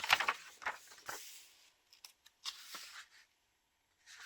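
Paper rustling as the pages of a picture book are handled and turned: a few short brushing strokes in the first second or so, then fainter ones.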